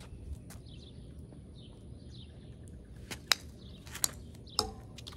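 A plastic wiffle ball bouncing on pavement: three sharp clicks about three seconds in, each closer to the last than the one before, the first the loudest. Under them, steady wind noise and faint bird chirps.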